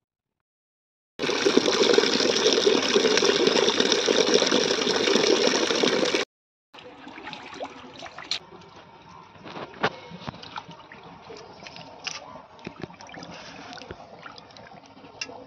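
Water running loudly for about five seconds and stopping abruptly, then, after a brief pause, quieter sloshing and splashing with small clicks and knocks as rohu fish pieces are washed by hand in a steel bowl of water.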